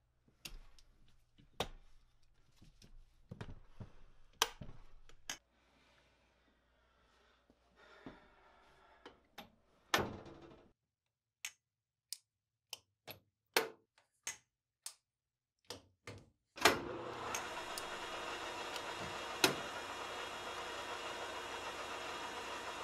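Scattered sharp metallic clicks and clunks as the cast-iron hex-turret tailstock is handled and worked. About two-thirds of the way in, the metal lathe starts and runs steadily, with one more sharp click partway through.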